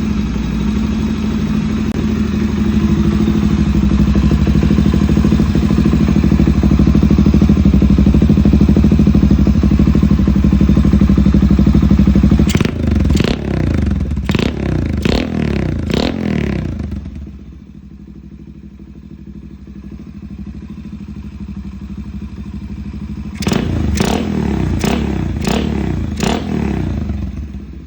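Honda Monkey single-cylinder four-stroke minibike running through a Waltz Kikai aftermarket exhaust: a loud, steady run for about twelve seconds, then a string of quick throttle blips, a drop to a quieter idle, and another burst of blips near the end.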